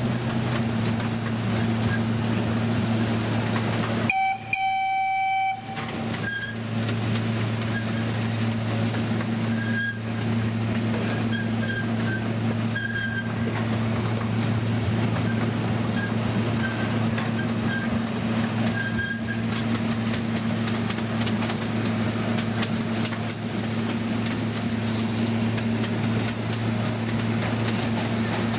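Open-sided tour tram riding along, its engine a steady low drone. About four seconds in the drone briefly cuts out and a short horn-like toot sounds.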